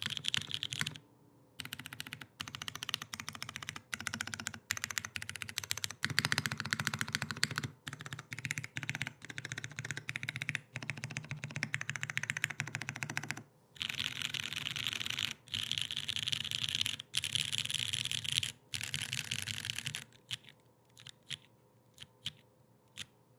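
Typing test on a gummy O-ring-mounted 60% keyboard in a polycarbonate case, with lubed and filmed tactile brown MX-style switches, TX stabilizers and GMK keycaps. Fast runs of keystrokes with brief pauses, thinning to a few single key presses near the end.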